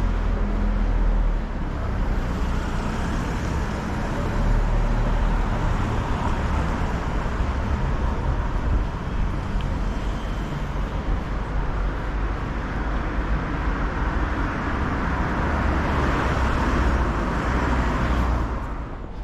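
City street traffic: a steady rumble and hiss of passing road vehicles, swelling near the end and then dropping off as the nearest vehicle goes by.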